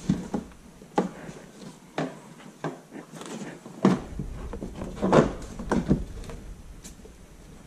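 A car's plastic wheel-well liner being tugged and worked loose by hand: scattered knocks and clicks, roughly one a second, the strongest about four and five seconds in.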